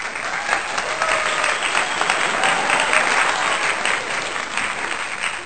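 Crowd applauding: dense, steady clapping at an even level.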